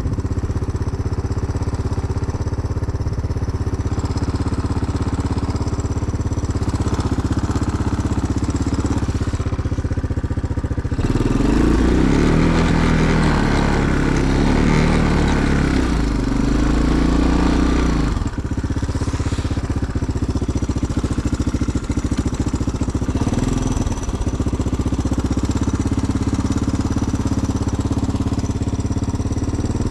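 Small gasoline engine running steadily, growing louder and busier with a shifting pitch for about seven seconds near the middle, then settling back to its earlier steady note.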